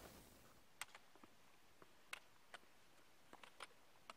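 Near silence, broken by a few faint, short ticks at irregular intervals.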